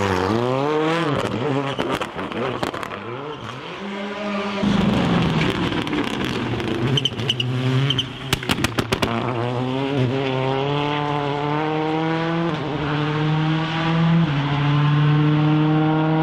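Skoda Fabia WRC rally cars' turbocharged four-cylinder engines at full race pace: first one blips and revs up and down, then a rapid string of exhaust pops and crackles comes about eight seconds in as the throttle is lifted. After that a car accelerates hard away, its pitch climbing steadily with two upshifts near the end.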